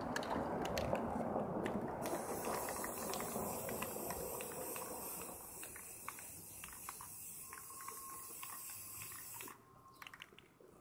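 Aerosol spray-paint can spraying in a steady hiss for about seven seconds, cutting off suddenly near the end, with scattered short clicks.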